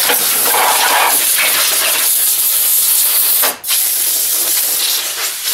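Compressed air hissing from an air-compressor blow nozzle in a long, steady blast. It breaks off briefly about three and a half seconds in, then starts again.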